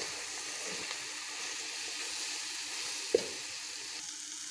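Okra, onions and tomatoes sizzling steadily in a metal pot as they are stir-fried with a slotted spatula, with a single knock of the spatula against the pot about three seconds in.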